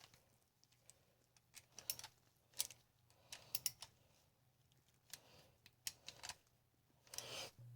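Near silence with faint, scattered small clicks of hand tools tightening the bolts on a reassembled car starter motor.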